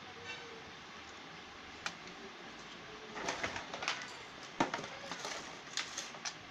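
A pigeon or dove coos softly in the background. From about three seconds in come a run of sharp clicks and knocks, the loudest a little past the middle, as the toy RC car's remote and box are handled.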